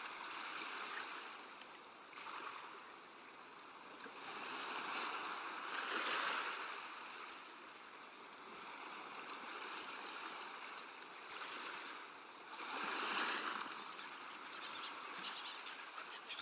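Water rushing and sloshing inside an industrial washing machine, a steady wash with two louder swells, about a third of the way in and again near the end.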